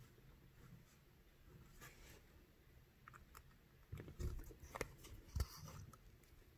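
Faint handling sounds of bead embroidery: needle and thread drawn through the stiff felt backing, fingers rubbing the work, and a few small clicks. They are busiest from about four seconds in, with a couple of sharper ticks.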